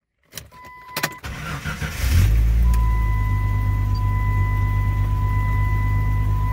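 Jeep Grand Cherokee ZJ's 4.0-litre straight-six, heard from inside the cabin: a few clicks, a brief crank, then the engine catches about two seconds in and settles into a steady idle. A thin, steady high tone sounds over the idle.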